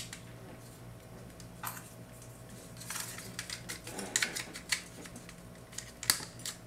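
Scattered light clicks and taps of a Steel Legend Kshatriya mecha figure's binder parts being handled, with its funnels being pegged back into the extended binder; a busier run of clicks comes about halfway through. A faint steady hum lies underneath.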